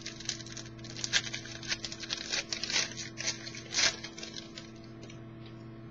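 Crinkling and tearing of a trading-card pack's foil wrapper as it is handled and opened: a run of short, irregular crackles, loudest about one and four seconds in, stopping a little after four seconds.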